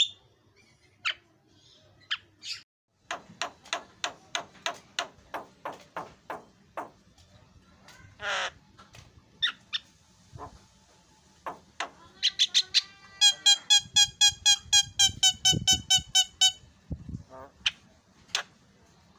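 Javan myna (jalak kebo) singing: scattered sharp whistled notes, then a run of short notes at about five a second and a brief harsh buzz. Near the end comes an even series of loud ringing repeated notes lasting about three seconds.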